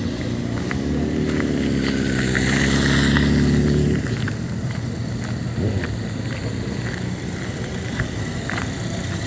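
A motor vehicle engine running close by, building in loudness for about four seconds and then cutting off suddenly, leaving general open-air background with a few faint clicks.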